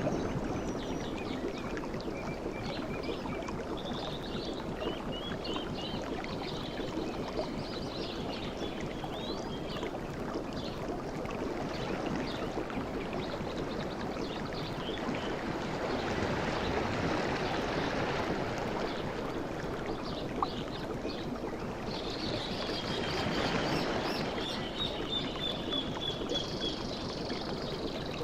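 Sea surf washing steadily, swelling a little twice, while birds chirp and trill over it.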